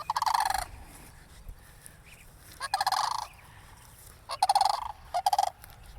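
Cranes calling with rolling, rattling calls, four in quick succession, each under a second long.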